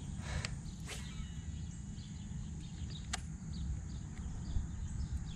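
Outdoor lakeside ambience: a steady low rumble of wind on the microphone, with scattered faint bird chirps and one sharp click about three seconds in.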